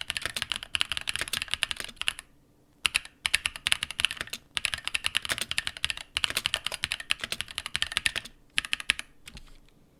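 Fast typing on a mechanical keyboard with linear switches, in quick runs of keystrokes broken by short pauses. The typing stops shortly before the end.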